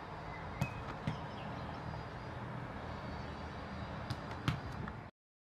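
Steady outdoor background hiss with a few sharp clicks and a brief faint chirp. The sound cuts off suddenly about five seconds in.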